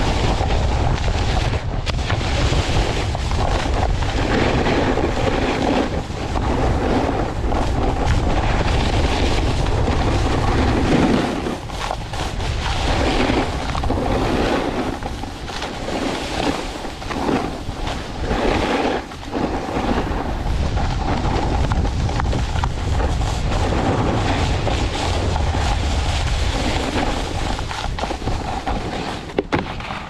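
Wind buffeting a mouth-mounted GoPro during a snowboard descent, with the board's edges scraping over hard, tracked snow in repeated swells as it turns. The low wind rumble eases about a third of the way through.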